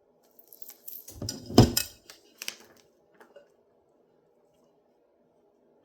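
Handling noises at a work table: rustling and clatter with one sharp knock about a second and a half in, then a couple of light clicks and only a faint hum.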